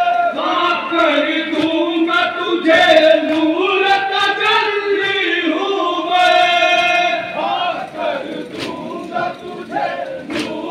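Muharram mourners, a crowd of men, chanting in unison in long, drawn-out phrases, led over a microphone. About three-quarters of the way through, the chant breaks off into shorter, scattered calls.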